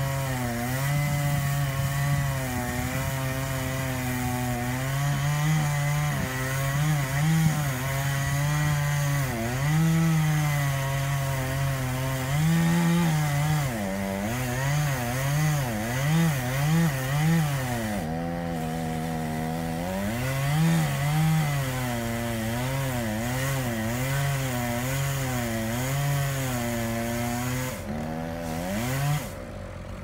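Chainsaw cutting branches, its engine pitch rising and falling again and again as the throttle is worked and the chain bites into the wood. The sound drops away near the end.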